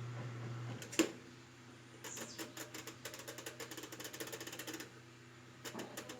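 Whirlpool top-load washing machine: a steady low hum cuts off with a sharp click about a second in, followed by a few seconds of rapid ticking.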